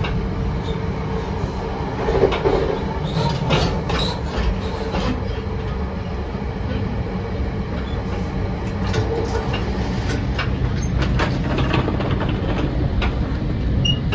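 Inside an NJ Transit Comet II/IV coach running at speed: a steady rumble of wheels on the rails, with irregular sharp clicks as the wheels cross rail joints and switches.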